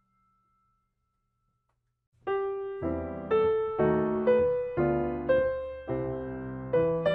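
Background piano music: silence at first, then the piece starts up about two seconds in, with notes struck roughly twice a second and each fading away.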